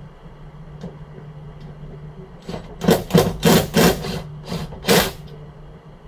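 Cordless drill run in about six short bursts against the steel door frame, about 2.5 to 5 seconds in, driving screws for a door contact without self-drilling screws.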